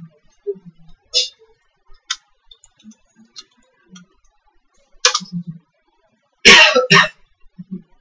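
A few scattered clicks of typing and clicking at a computer keyboard and mouse. Then, about two-thirds of the way in, two loud short bursts of noise about half a second apart.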